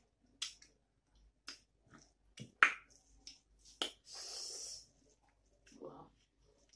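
Close-up eating sounds: wet mouth smacks and clicks of chewing rice and curry eaten by hand, with a half-second hiss of breath about four seconds in.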